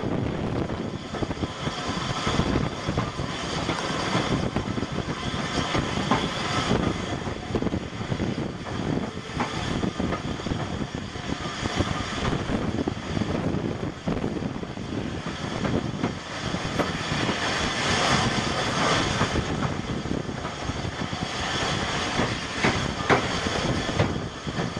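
Heritage passenger train running and slowing along a station platform: a continuous rumble and clatter of the wheels on the rails, mixed with wind noise from outside the open carriage window.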